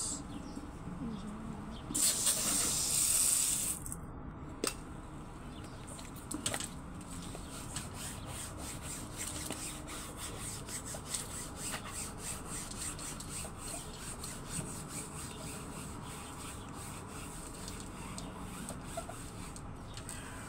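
Sponge scrubbing a soapy screen-door panel: repeated rubbing strokes that run on steadily for most of the time. A loud hiss lasts about two seconds, starting about two seconds in.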